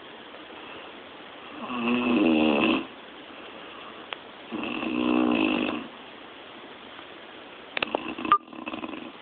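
A woman snoring loudly: two long, buzzing snores about three seconds apart, each lasting a little over a second. Near the end comes a short cluster of clicks with one sharp knock.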